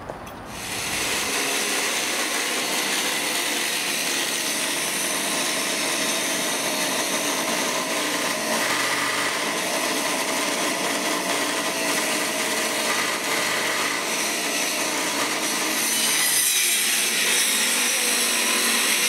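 Angle grinder cutting through metal, a rounded-off bolt that could not be removed, running as one steady grinding noise. It starts about half a second in and gets a little louder near the end.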